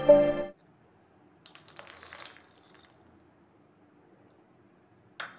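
Intro music cuts off about half a second in. Then comes a faint rattling of dry soya chunks tipped from a plastic bowl into another plastic bowl, and a sharp clink near the end.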